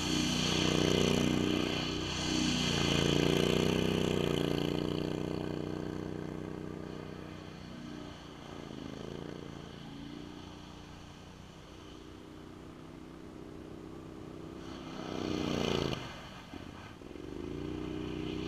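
Max 6x6 amphibious ATV engine running as the machine drives across ice, fading as it moves off into the distance. It grows louder again, with a sharp swell in level and pitch about fifteen seconds in, as it comes back. The sound cuts off abruptly at the very end.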